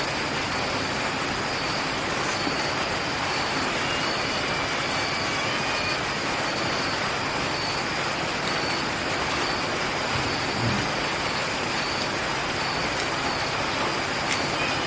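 Steady even hiss of background noise, with a faint high-pitched tone pulsing on and off and a brief low sound about ten and a half seconds in.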